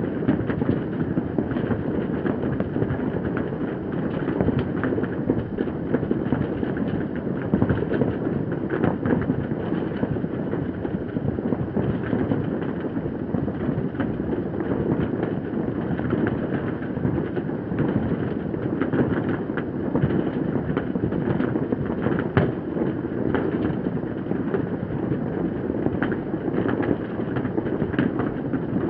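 Fireworks going off all over a city: many distant bangs and crackles run together into a steady rumble, with sharper single pops standing out every second or so.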